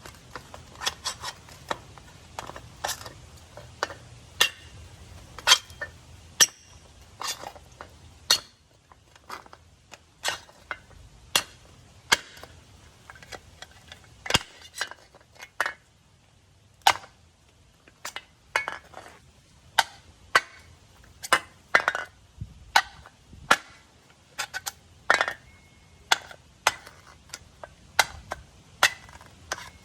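Out-the-front automatic knife firing and retracting over and over: dozens of sharp metallic snaps, one to two a second at an uneven pace.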